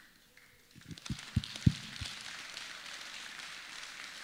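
Audience applauding: the clapping starts about a second in and carries on steadily. Four dull low thumps sound as it begins.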